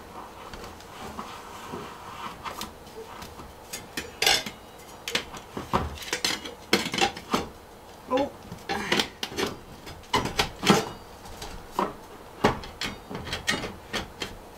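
Black stovepipe being fitted and twisted onto a stainless chimney section: irregular metallic clanks, knocks and scraping. They are sparse at first and come more often from about four seconds in.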